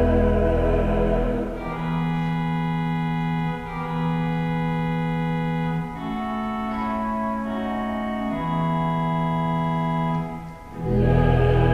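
Organ playing slow sustained chords that change about every two and a half seconds, between phrases of a vocal quartet; the singing fades out in the first second or so and comes back in near the end.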